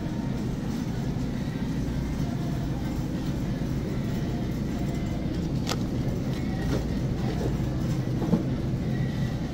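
Steady low rumble of supermarket background noise, with a couple of sharp clicks about six and eight seconds in.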